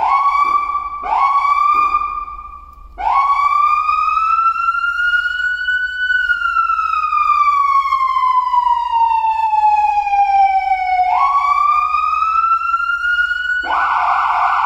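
Feniex Typhoon electronic police siren sounding through its siren speaker as its tones are tried: two short rising chirps, then a wail that rises slowly for about three seconds and falls for about five, rises again, and near the end switches to a rapid warbling tone.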